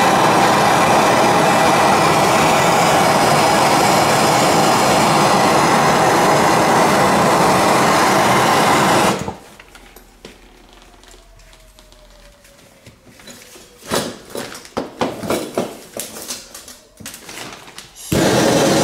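Handheld gas torch flame running steadily against a copper heating pipe, shut off suddenly about nine seconds in. A few seconds of clicks, knocks and handling taps follow, with a faint falling whine. The torch is relit near the end and the flame noise returns at once.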